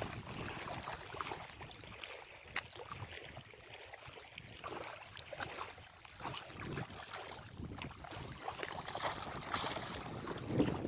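Water splashing and sloshing at the lake's edge, with scattered small knocks and wind on the microphone; the splashing gets busier near the end.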